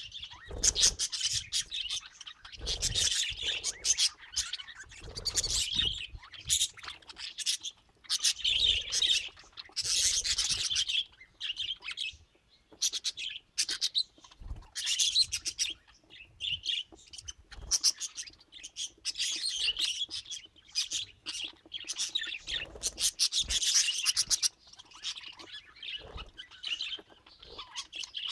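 Pet budgerigars chirping and warbling in rapid, busy bouts with short pauses between them, with a few dull low bumps underneath.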